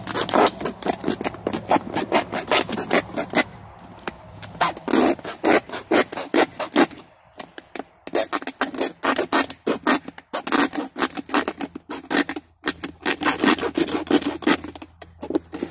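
A knife sawing through the wall of a large plastic soda bottle: rapid rasping back-and-forth strokes in runs, broken by a few brief pauses. The knife cuts poorly.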